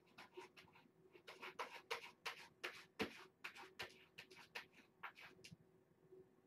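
Cat scraping cat litter to cover its waste: a run of quick, dry, faint scratches, about four a second, that stops about five and a half seconds in.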